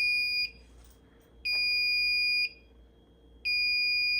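Fire alarm control panel's trouble sounder beeping, a high electronic tone about one second on and one second off, three beeps. The panel is signalling a battery trouble because its standby sealed lead-acid batteries have been unplugged from the board.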